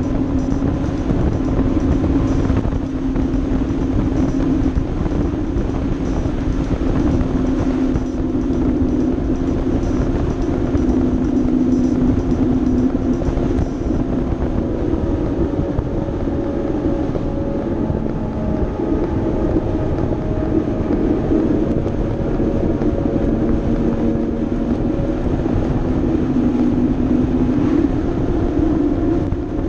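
Honda Gold Wing touring motorcycle cruising at a steady speed. Its engine hum runs steadily under heavy wind and road noise.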